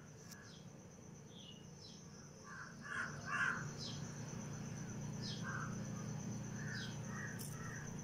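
Crows cawing several times, loudest about three seconds in, over a steady pulsing high insect trill and short, high, falling chirps repeated every second or so.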